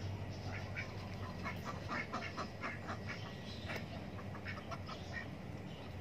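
Domestic ducks quacking in a string of short, quick calls, busiest over the first few seconds and thinning out toward the end.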